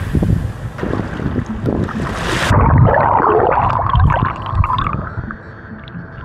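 Wind buffeting the microphone over beach surf. About two and a half seconds in, it cuts off abruptly and gives way to a louder, muffled sound with a wavering tone.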